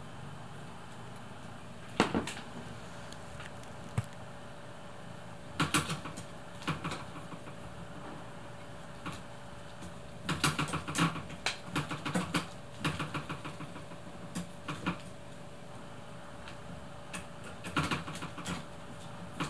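Irregular taps and short bursts of rapid rattling clicks as a cat swats at a wand toy on a string, the toy knocking and clattering against the cat's paws and the chair. The busiest rattling comes about halfway through, with single sharp knocks near the start.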